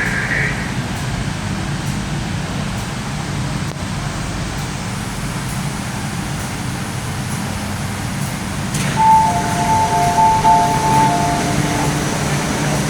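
Steady hum and rumble of an MTR Kwun Tong Line Q-Train heard from inside the car. About nine seconds in, a click is followed by a repeated two-note electronic beeping that lasts about three seconds.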